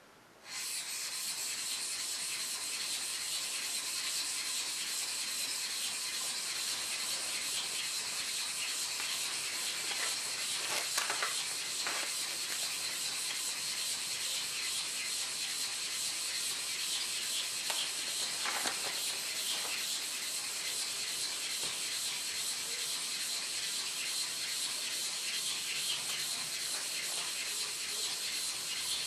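A hair clipper blade lapped by hand on a wet 600-grit whetstone: a steady scraping rub of steel on stone, starting about half a second in.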